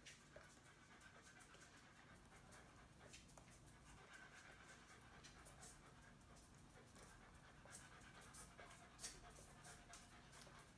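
Near silence: faint room tone with a few soft, scattered clicks and rustles.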